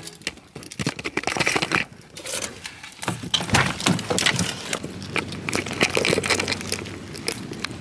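Close handling noise: irregular rustling, clicks and knocks of clothing, a handbag and a plastic water bottle moving against a handheld phone, with a faint steady low hum coming in about three seconds in.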